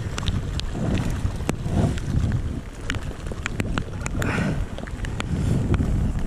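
Wind buffeting the microphone, a low uneven rumble, with many small sharp clicks scattered through it.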